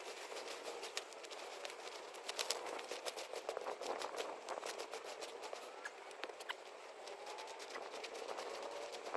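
Scattered light crackles, clicks and rustles of dry forest-floor litter and twigs being disturbed, irregular and never loud.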